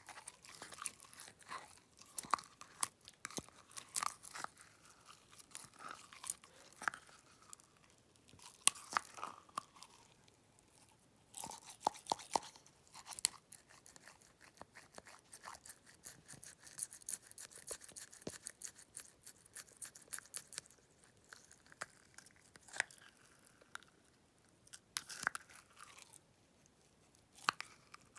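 Homemade glitter slime being kneaded and folded by hand: an irregular run of small wet clicks and crackles, busier in some stretches and sparser in others.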